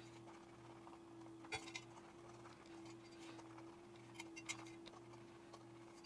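Near silence with a faint steady electrical hum, broken by a few light clicks and taps: one about a second and a half in and two more just past four seconds.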